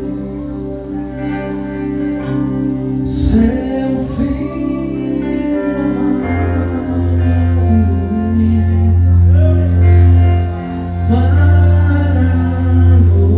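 Church worship band playing a slow song with sustained held chords and singing. A deep bass line comes in about six seconds in.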